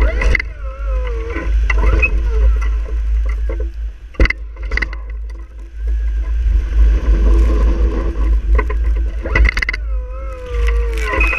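Truck-mounted snow plow at work: a steady low rumble under wavering squeals and groans, with several knocks as the plow blade pushes and scrapes snow. The squeals come near the start and again near the end, with a sharp knock about four seconds in.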